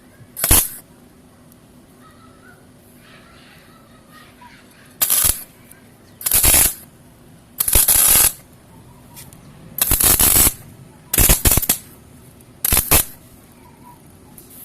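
Electric arc welder laying short tack welds on steel: about seven spells of arc noise, each under a second, a second or two apart.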